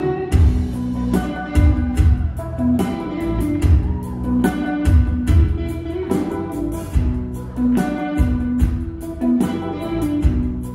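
Live rock band playing an instrumental passage with a steady beat.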